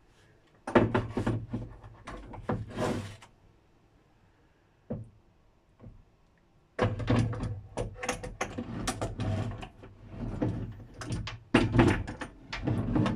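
Repeated knocks and clatter of heavy metal door closers being handled and shifted about, in two bursts with a quiet pause between.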